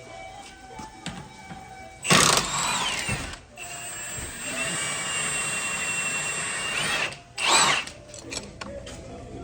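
Power tool running in bursts: a short loud burst about two seconds in, a longer steady whining run until about seven seconds, then another short burst that rises and falls in pitch.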